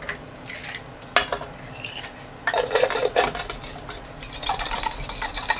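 Wet cement mix being stirred in a glass mason jar, scraping and clinking against the glass in uneven strokes, with one sharp clink about a second in.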